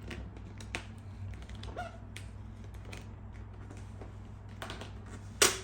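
Scattered small clicks and soft rustles of fingers pressing and sliding a vinyl decal onto a plastic motorcycle fairing, with one sharper, louder snap about five seconds in. A faint steady hum runs underneath.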